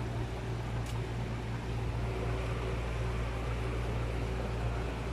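Tour boat's engine running steadily, a constant low hum with a faint steady tone over it.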